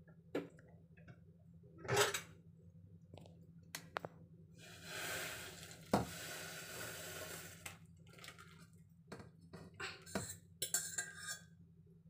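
Udon broth poured from a stainless steel pot into a ceramic bowl, a steady splashing pour lasting about three seconds in the middle. Before and after it, knocks and clinks of the pot and a metal fork against the bowl.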